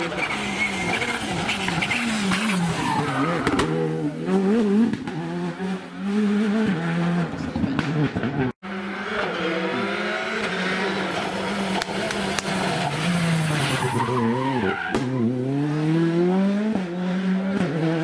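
Two Rally2 cars passing in turn, a Škoda Fabia and then a Citroën C3, each with a 1.6-litre turbocharged four-cylinder engine. The engine note rises and falls sharply with gear changes and lifts off the throttle. The first pass cuts off abruptly about eight and a half seconds in, and the second car follows.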